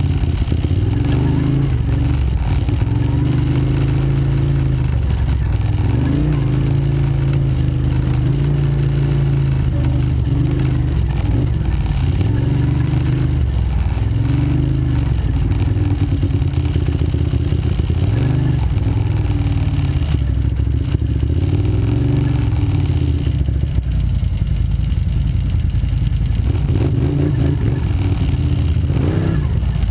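Quad bike (ATV) engine running under load on a rough trail, its pitch rising and falling again and again as the throttle is opened and eased, heard close up from on board, with clatter from the bumpy ride.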